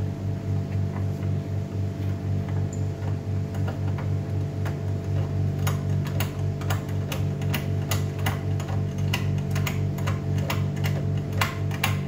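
Steady low hum pulsing about four times a second. From about three seconds in, it is overlaid by a run of irregular sharp clicks from hand tool work on the autoclave's tubing fittings.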